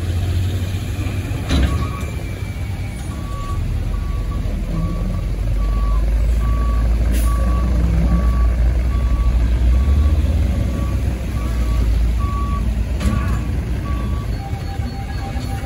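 Heavy dump truck diesel engine running under load, with a reversing alarm beeping steadily, a little under two beeps a second, and a few short air hisses from the air brakes. A truck horn starts sounding steadily near the end.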